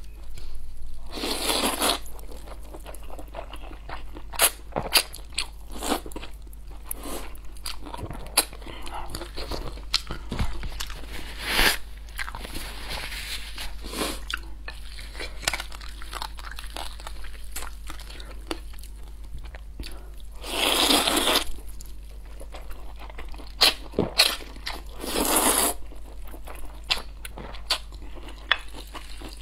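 Close-miked mouth sounds of eating noodles: wet chewing and smacking clicks throughout, with three longer slurps of noodles, one near the start and two about two-thirds of the way through.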